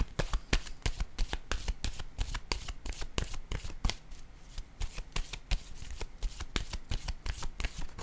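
A deck of oracle cards being shuffled by hand: cards slapping and riffling against each other in quick, irregular taps, several a second.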